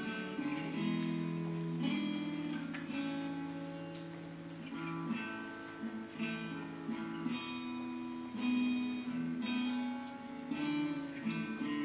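Background music: a slow acoustic guitar piece, its notes plucked and left to ring.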